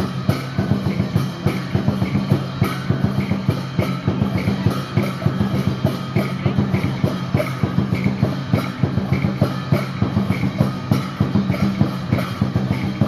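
Instrumental music with a quick, steady drum beat over a held low tone.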